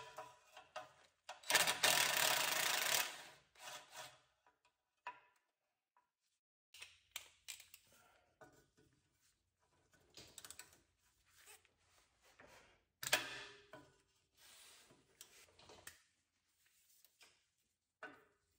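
Hand socket ratchet clicking in quick runs, with clinks of metal tools, as bolts are loosened under the car to remove the starter. The longest and loudest run of ratcheting comes about one and a half seconds in, with another short loud burst past the middle.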